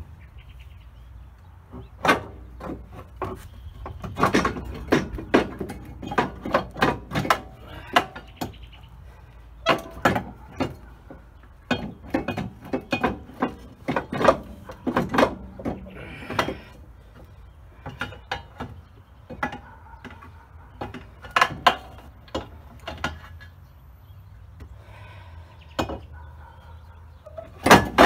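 Hand tools working bolts loose on a car's rear suspension trailing arm: irregular metallic clicks and clanks, with bursts of ratchet-wrench clicking, coming in clusters with short pauses between.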